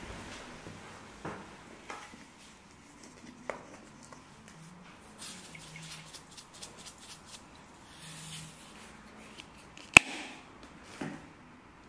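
Pepper mill grinding black pepper in short spells of fast clicking, with one sharp click about ten seconds in.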